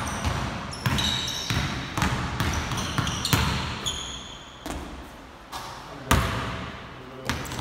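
A basketball bounces hard on a hardwood gym floor during dribbling drills. There are about ten sharp, echoing bounces at uneven spacing, with short high-pitched sneaker squeaks in between.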